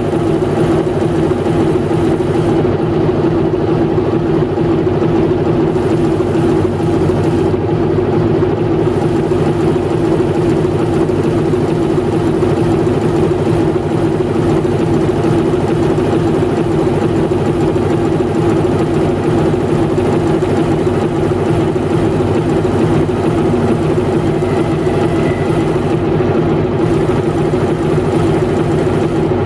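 TEM18DM diesel shunting locomotive standing with its diesel engine idling: a steady, unchanging drone with a strong low hum.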